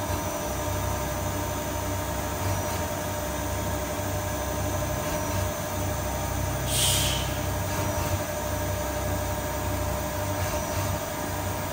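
Miyano BND 42S5 CNC lathe running: a steady machine hum with several steady tones over a constant hiss. There is a short burst of hiss about seven seconds in.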